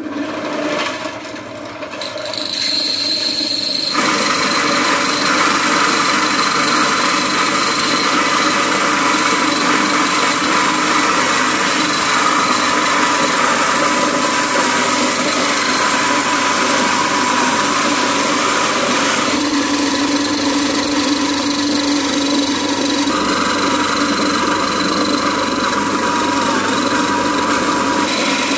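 Small electric grain mill grinding dried corn kernels into meal. It is a steady, loud mechanical grinding whir that builds over the first few seconds and then holds even.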